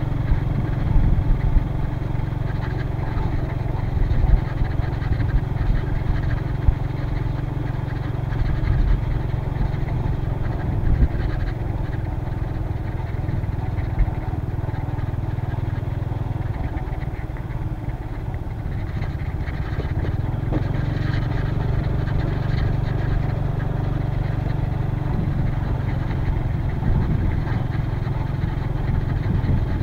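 Motor scooter engine running steadily while being ridden, a low even drone, with a few brief thumps in the first half.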